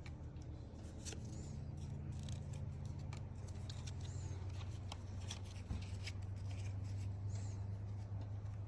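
Trading cards and pack wrappers being handled: scattered light clicks and rustles as cards are slid and flipped, over a steady low hum.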